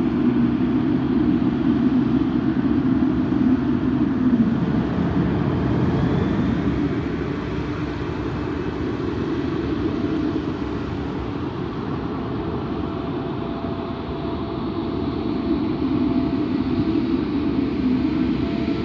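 Boeing 777 freighter's GE90 jet engines running at taxi power as the aircraft rolls along the taxiway: a steady rumble, easing a little midway and swelling again near the end, with a faint high whine joining in the second half.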